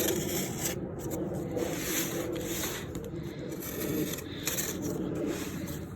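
Cardboard box and packaging being handled and opened: continuous rubbing and scraping rustle that rises and falls unevenly.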